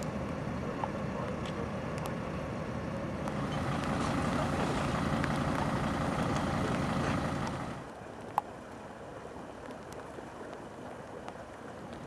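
Fire engines' engines running steadily, a rumbling noise that drops to a quieter outdoor background about eight seconds in, with a single sharp click shortly after.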